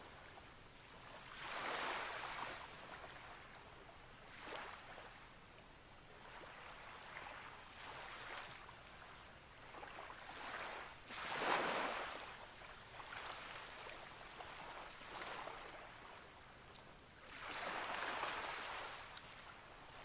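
Ocean waves washing in and drawing back, surging every few seconds, with the biggest wash a little past the middle.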